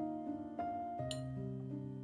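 Background piano music with held notes, and a brief high clink about a second in.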